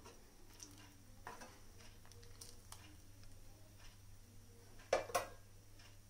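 Steel ladle stirring simmering, thickened milk in a steel pan, with faint scrapes and clicks and two louder knocks of metal on the pan about five seconds in.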